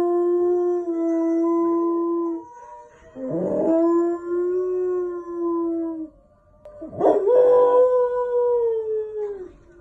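Samoyed howling: three long, steady howls, the first running until about two and a half seconds in, the second starting about three seconds in, and the third, higher, starting about seven seconds in and falling away at its end.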